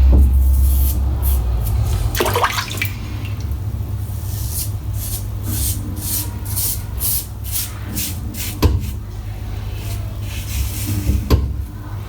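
Razor scraping over a lathered scalp in a run of short, even strokes, about two or three a second, with water running and a few sharp clicks.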